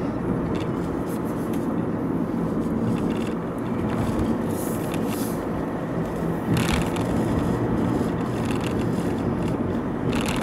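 Alfa Romeo Giulia Veloce's 2.2 four-cylinder turbodiesel and its tyres heard from inside the cabin while driving: a steady engine hum over road noise, with a brief knock about six and a half seconds in.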